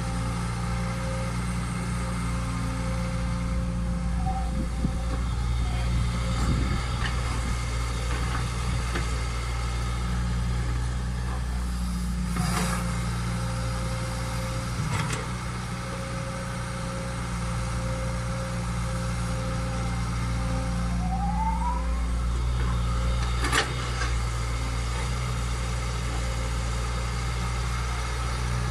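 Caterpillar tracked excavator's diesel engine running steadily as it digs and swings loads of soil, with a few sharp knocks, three in all.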